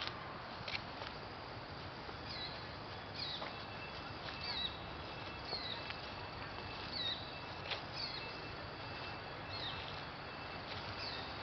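A bird calling outdoors: short, high, falling chirps repeated roughly once a second, with a few sharp clicks and a faint steady high drone in the background.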